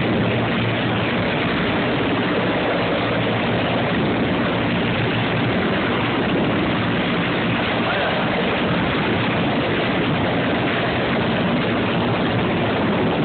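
Helicopter engine and rotor noise, loud and steady throughout.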